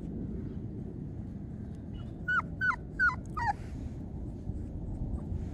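Month-old puppy whimpering: four short high whines in quick succession about two seconds in, each dropping in pitch, over a steady low rumble.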